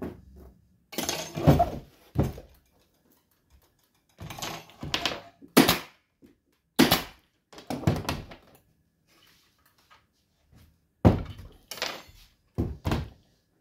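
Pneumatic upholstery staple gun firing staples through velvet into a wooden chair frame: a string of sharp shots at uneven intervals, some in quick pairs.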